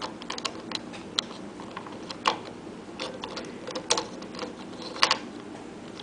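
Hard plastic pieces of a 4x4 Rubik's cube clicking and knocking irregularly as loose center pieces are handled and pressed into the partly assembled cube, with louder clicks about two, four and five seconds in.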